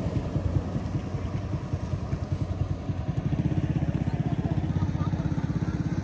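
A small engine running with a fast, even firing beat, steadier and louder from about three seconds in.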